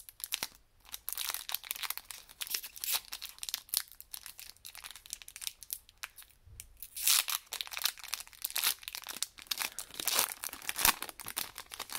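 Foil wrapper of a Pokémon trading card booster pack crinkling and tearing as it is opened, with the rustle of the cards being handled. The crackles come in irregular clusters, louder in the second half.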